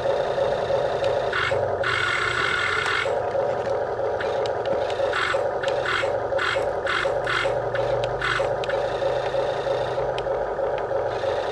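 Radio-controlled toy backhoe running: a steady mechanical whir, with brief higher-pitched spells that come and go as it works, mostly between about five and eight seconds in.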